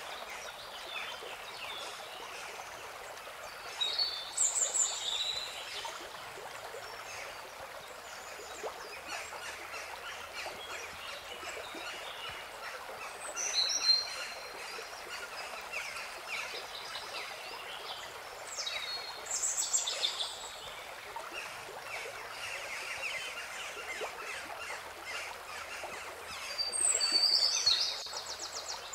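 Birds calling in four short spells of high chirps over a steady rushing background noise, like an outdoor nature ambience.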